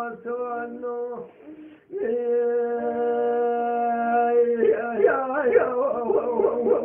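A man's voice singing Kurdish hore, the melismatic traditional vocal style: a phrase ends about a second in, then after a short breath pause comes one long held note, which breaks into fast wavering, ornamented runs near the end.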